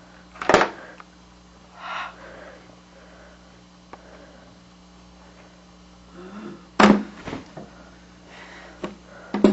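Handling noises as a black helmet is taken out of a package and turned over in the hands: two sharp knocks, about half a second in and again near seven seconds, a brief rustle at about two seconds, and a few light clicks near the end, over a steady low hum.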